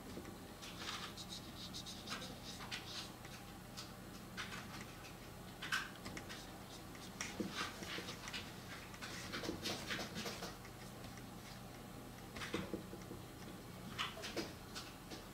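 Brush pen strokes on paper: irregular short scratches and swishes as lines are drawn, with a few sharper ticks.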